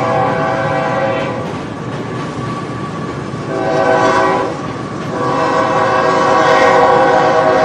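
Train horn sounding in blasts: one ends about a second in, a short one comes around four seconds, and a long one starts near the middle and is still sounding at the end. Under the horn is the rumble and clatter of a moving train.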